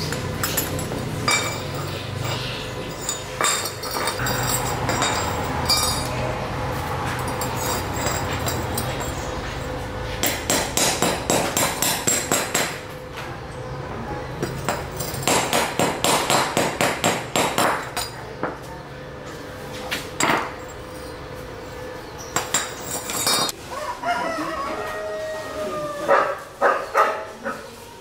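Homemade arc welder, built from a rewound ceiling-fan motor stator fed by a battery, crackling steadily with a faint hum as it welds square metal tube. About ten seconds in, the steady sound gives way to quick runs of sharp metal knocks, about five a second, then a few single knocks, with animal calls near the end.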